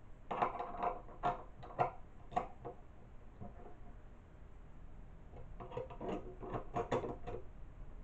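Small metal door-lock parts clicking and clinking as the latch and the cover plate are handled on a wooden table, in two short bursts of clatter with a quieter lull between.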